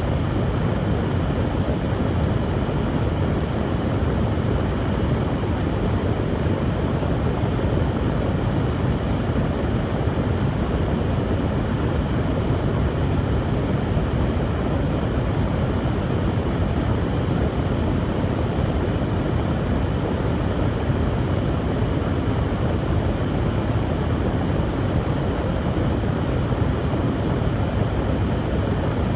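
Hair dryer running steadily: an even blowing noise, strongest in the low range, with no change in speed.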